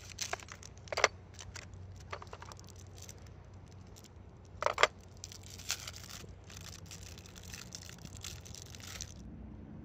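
Close-up handling of fishing tackle and a pair of scissors: scattered clicks and rustling, the loudest a sharp double click about five seconds in, followed by a few seconds of fine crackly clicking that stops near the end.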